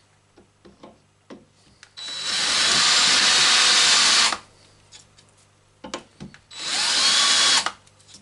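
A small electric power tool runs twice on a stainless steel nut: a burst of about two seconds, then a shorter one of about a second, each with a high whine. Light clicks and knocks of handling come between the runs.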